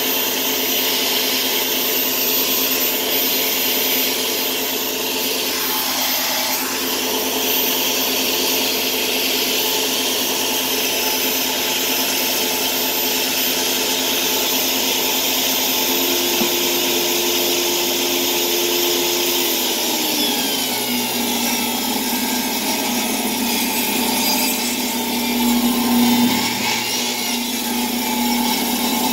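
Electric table saw running with no load on the blade, a steady machine whine. About two-thirds of the way through, a tone in it falls in pitch as the blade takes a rip cut through a piece of wood and the motor slows under the load.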